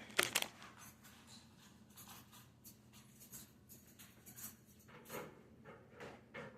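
Faint scattered rustles and light clicks of small things being handled, with a louder rustle just after the start and another about five seconds in.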